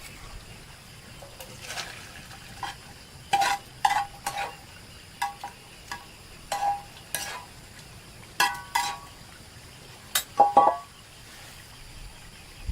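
A metal utensil stirring in a cooking pot or pan, knocking and clinking against the metal many times in an uneven rhythm, each knock ringing briefly.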